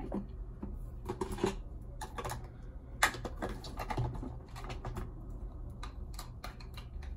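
Scattered small clicks and taps of makeup items being handled, a compact and a makeup brush picked up and set down, at an irregular pace.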